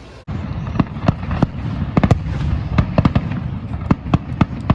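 Fireworks going off: a rapid, irregular string of sharp bangs over a continuous low rumble, starting suddenly about a quarter second in.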